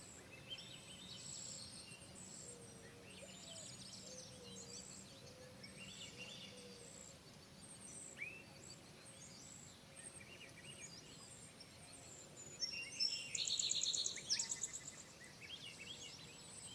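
Several songbirds chirping and trilling over a faint steady hiss, the calls overlapping; a burst of rapid repeated notes about three-quarters of the way through is the loudest part.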